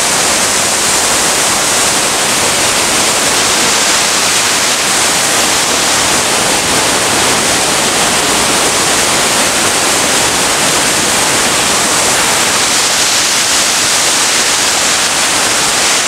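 Small waterfall rushing steadily over rock into a pool: a loud, even rush of falling water.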